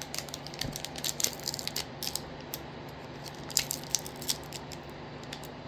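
Crinkling and crackling of booster-pack packaging being handled, in scattered bursts of small clicks, over a faint steady low hum.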